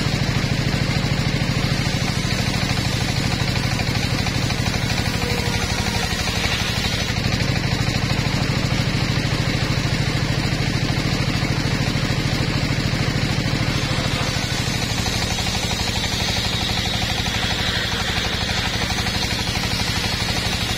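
Engine-driven portable circular sawmill running steadily while its blade rips boards from a log: a continuous engine drone with the saw's cutting noise over it, the balance shifting slightly about two-thirds of the way through.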